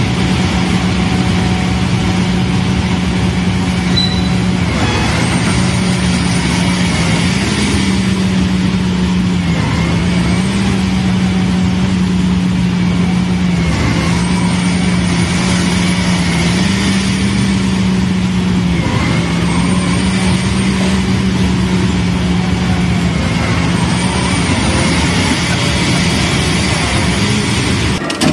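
Diesel-driven mobile shredder running under load as it chews a truck tyre, a steady heavy drone whose pitch dips and recovers every few seconds, over a continuous grinding clatter.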